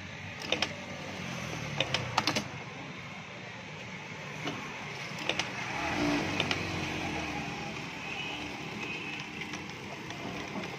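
Juki direct-drive industrial lockstitch sewing machine stitching cloth, running with a steady mechanical hum. Several sharp clicks come in the first couple of seconds and again about five seconds in.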